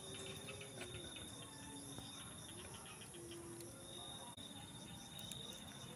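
Insects trilling steadily in a high, pulsing chorus, with a few faint ticks from the small wood fire under the coconut.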